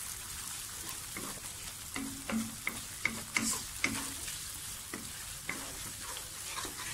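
Sliced aromatics and ground chilli paste frying in oil in a wok with a steady sizzle, while a wooden spatula stirs them. The spatula scrapes and knocks against the pan about a dozen times, most often between one and four seconds in.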